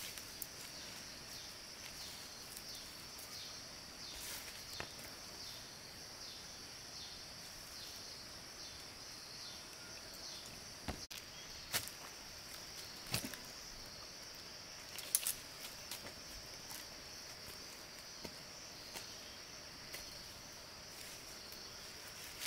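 Steady, high-pitched insect drone, with scattered sharp clicks and knocks over it.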